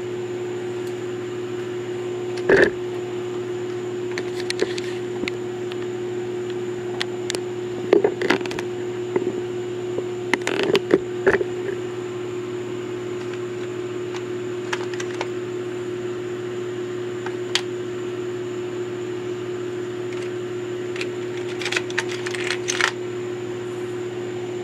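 Small metal objects clicking and clinking in a few brief clusters over a steady electrical hum.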